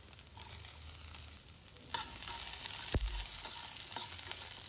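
Chopped vegetables sizzling in hot coconut oil in a kadai as they are stirred. The sizzle grows louder about two seconds in, and there is a single knock about three seconds in.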